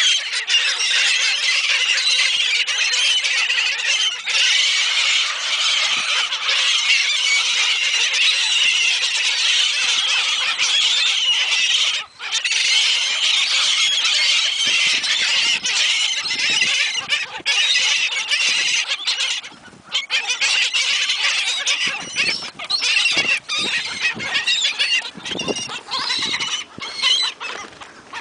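A flock of seagulls crowding to be fed, many high-pitched squealing cries overlapping without a break, with brief lulls about twelve and twenty seconds in.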